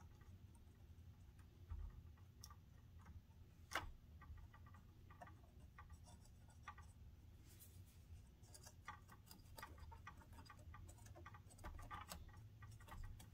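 Near silence, broken by faint scattered clicks and light scratching, with one sharper click about four seconds in: a rag scrubbing old solder flux off a circuit board with isopropyl alcohol.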